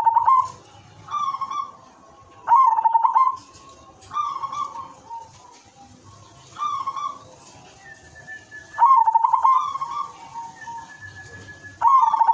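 Zebra dove of the silver colour form cooing in its repeated song: about seven short phrases a second or two apart. Several open with a quick stuttering rattle before the soft coo.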